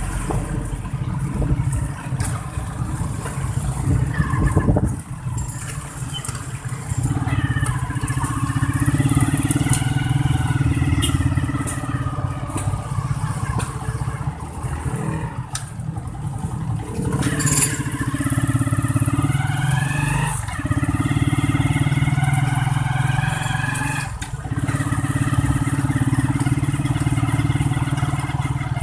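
Motorcycle engine of a tricycle running under way, a steady low drone whose pitch rises and falls slowly a few times as the throttle opens and eases.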